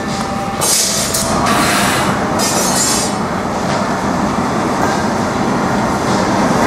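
Gas-fired glory hole burner running with a steady, loud rushing noise, with short bursts of high hiss about a second in and again near three seconds.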